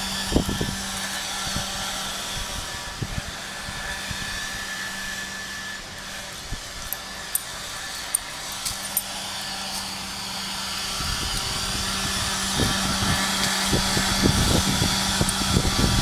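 Handheld leaf blower running steadily, a motor hum under a rush of blown air. It grows louder over the last few seconds as the blower comes close, with gusts of air buffeting the microphone near the end.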